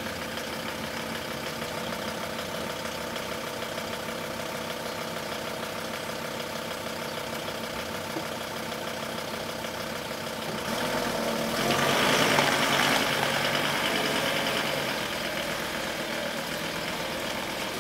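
Off-road 4x4's engine idling steadily, then revving up louder for a few seconds about two-thirds of the way in and easing back down.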